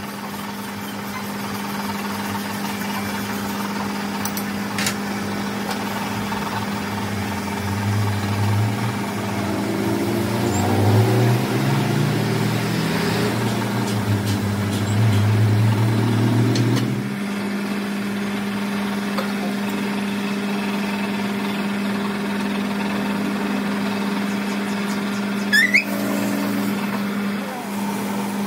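An engine running steadily under a constant hum. Its note rises and falls in steps between about 8 and 17 seconds in, as the revs change. A brief sharp squeak comes near the end.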